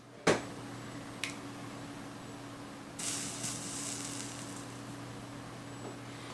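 Soldering iron sizzling as it melts flux-coated solder on a circuit board's pads, a high hiss that starts about three seconds in. A sharp click comes just after the start and a fainter one about a second later, over a steady low hum.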